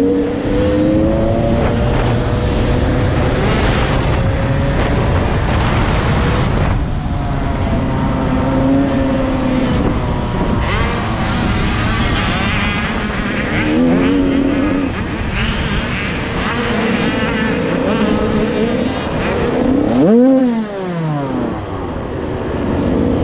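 Dirt bike engine heard close up from the bike's own onboard camera, revving up and down with the throttle under a rush of wind and dirt noise. Near the end one sharp rev rises and falls, and the engine then runs lower and quieter.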